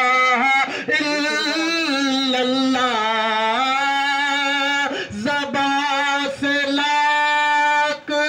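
A man singing a naat unaccompanied into a microphone, drawing out long held and ornamented notes without clear words. He breaks briefly for breath about five seconds in and near the end.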